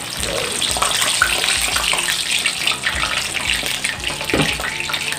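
Chicharon bulaklak (pork mesentery) deep-frying in hot oil for its second fry: dense, steady bubbling and crackling of the oil.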